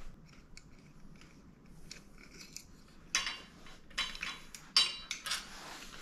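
Metal hardware clinking as a bicycle's front reflector and its bracket are unbolted and pulled off with a hand tool: a few light ticks, then several sharp, ringing clinks in the second half.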